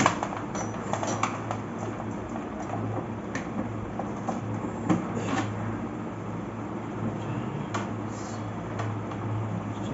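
Scattered light clicks and knocks of plastic tubing and fittings being handled at the base of a water purifier, over a steady low hum.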